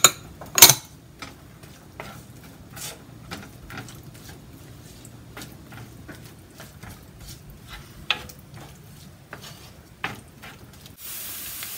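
Wooden spoon stirring diced onions and cumin seeds in a nonstick frying pan, with irregular scrapes and light taps against the pan, after two sharp knocks right at the start. Near the end a steady sizzling hiss of onions frying in oil comes in.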